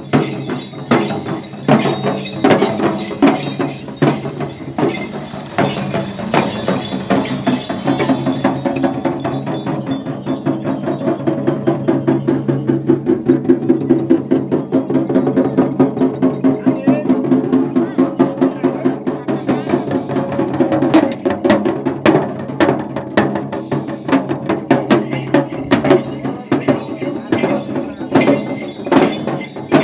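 Jhankri dhyangro frame drums beaten in a steady rhythm, with the dancers' bells jingling; the strokes come faster and closer together through the middle.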